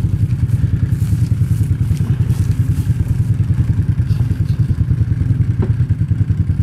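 An ATV engine idling close by, a steady, rapid low throb.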